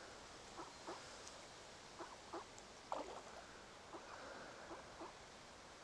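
Faint, short, soft duck calls, about nine in all, some coming in quick pairs.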